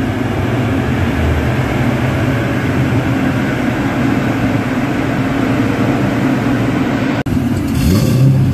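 A car engine running steadily on a chassis dyno. After a sudden cut near the end, a Cadillac CTS-V coupe's V8 runs and rises briefly in revs.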